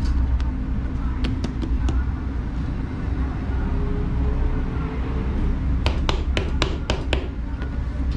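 Steady low background rumble, with a few sharp slaps early on and a quick run of about six sharp slaps and taps about six seconds in, from hands patting flatbread dough on a griddle.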